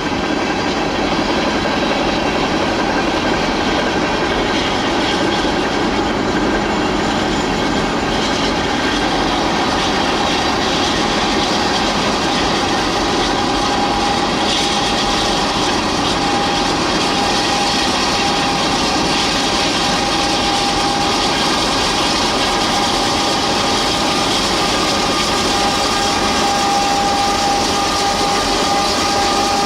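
Norfolk Southern freight train rolling along steadily: a continuous rumble of wheels on rail with a faint clickety-clack, and a steady whine that grows stronger about halfway through.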